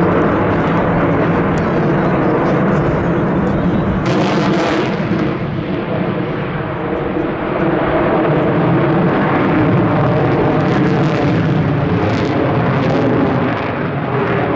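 Su-35S fighter jet in flight overhead: a steady, loud jet-engine rumble, with a brief hissing swell about four seconds in.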